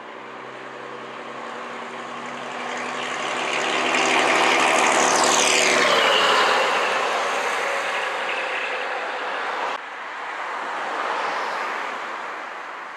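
Vintage single-deck bus engine running as the bus approaches, growing louder, passing close by about five seconds in with a falling pitch, then fading away. A car passes near the end.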